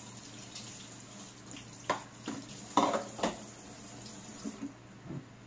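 Kitchen tap running into the sink for about four and a half seconds, then shut off. Four sharp clinks and knocks of dishes land in the middle of it.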